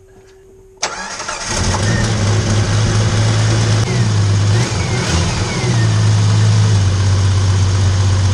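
A 1993 Jeep Grand Cherokee's engine is cranked and catches about a second in, then runs, its revs rising and falling for a few seconds before settling into a steady idle.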